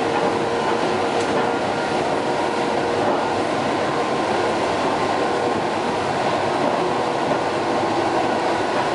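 Steady running noise inside the passenger car of an EP2D electric multiple unit at speed: wheels and track rumbling evenly, with a faint steady hum running through it.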